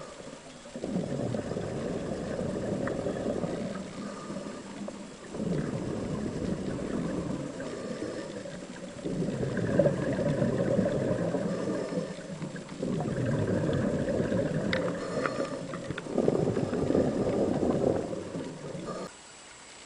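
A scuba diver breathing underwater: five long bubbling bursts of exhaled air, each about three seconds, with short quieter gaps between breaths.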